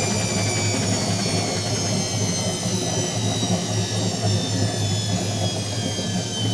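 Whirlpool AWG023 H-axis top-loading washing machine running a spin, with a steady low hum and a motor whine that slowly falls in pitch as the drum slows down.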